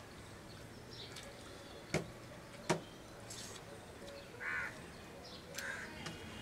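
Two sharp clicks about two seconds in, the loudest sounds, then a crow cawing, once about four and a half seconds in and more briefly near the end.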